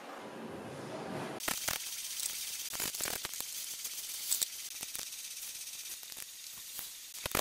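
Steady hiss from about a second and a half in, with irregular clicks and light knocks of a socket wrench on the engine cover's nuts and of the plastic oil filler cap being turned.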